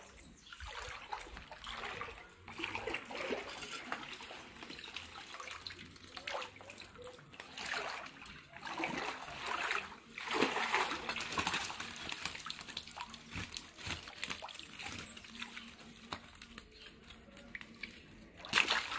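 Shallow water sloshing and splashing as a hand net is swept through it and legs wade about, in uneven surges. Near the end the net is lifted out with a sudden loud splash of water running off it.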